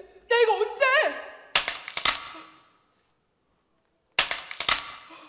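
Staged acorn-crunching sound effect ('o-do-dok!'): a quick burst of sharp cracks about a second and a half in, then dead silence, then a second burst of cracks about four seconds in. Before the first burst, children's voices call out in short sliding, questioning tones.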